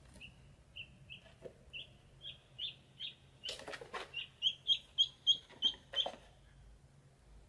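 Ducklings peeping: a run of short, high, single-note peeps, about three a second, louder in the second half and stopping near the end. A few brief rustles of birds shifting in the basket come between the peeps.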